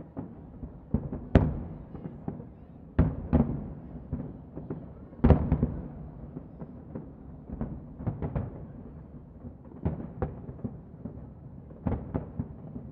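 Aerial firework shells bursting in an irregular string of bangs, one to two a second, each trailing off; the loudest come about a second and a half in and about five seconds in.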